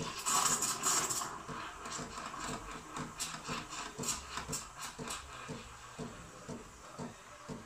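Sage Barista Pro steam wand frothing milk in a stainless jug: a loud steam hiss that drops away about a second in, over a soft pulsing about twice a second.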